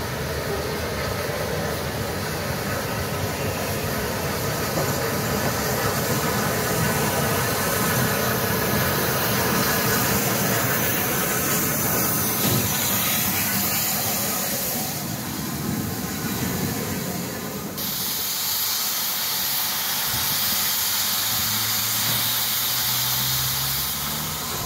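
Steam-hauled passenger train running past, its coaches rumbling over the track. Then, after an abrupt change, a steady loud hiss of steam escaping from a standing steam locomotive.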